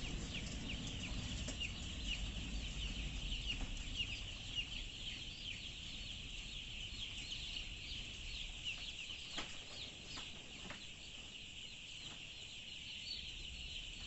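A large flock of chickens in a poultry house calling continuously, many high, short calls overlapping, with a couple of faint knocks about halfway through.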